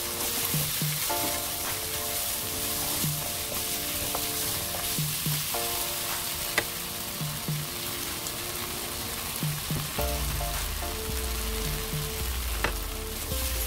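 Sweet black-vinegar glaze sizzling in a frying pan as fried pork belly pieces are tossed through it with a silicone spatula, with a couple of sharp clicks. Background music with short repeated notes and a steady low beat plays throughout.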